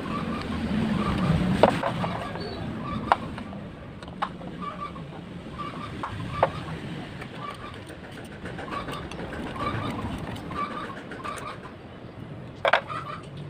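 A handful of sharp knocks and clicks, with a bird chirping repeatedly in short groups in the background.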